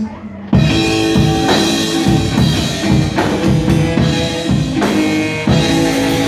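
Live rock and roll band playing loudly: electric guitar, upright double bass and drum kit. After a brief drop in level, the full band comes back in together about half a second in, with steady drum strokes.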